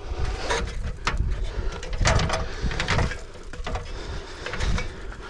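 Footsteps crunching irregularly through dry leaves and ground litter, over a steady low rumble.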